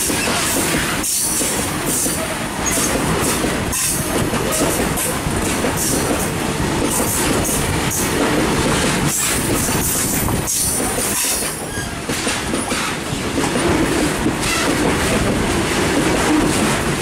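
Freight wagons of a goods train rolling past at close range: a loud, steady clatter of steel wheels on the rails that runs on without a break.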